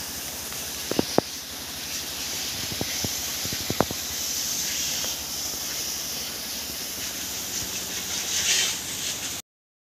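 Steady high-pitched buzzing of an insect chorus in outdoor ambience, with a few sharp clicks about a second in and near four seconds. The sound cuts off suddenly near the end.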